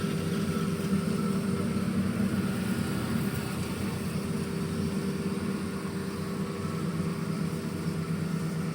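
Baileigh BS-24A automatic bandsaw running steadily, its drive giving an even hum with a constant whine, the blade turning at a reduced speed.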